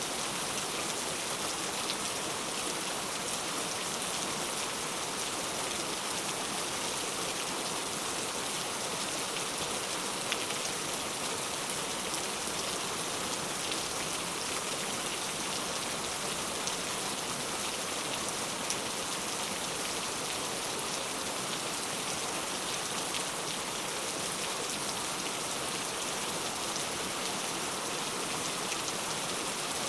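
Steady rain falling, drops pattering on a surface with a constant hiss and scattered individual drop ticks.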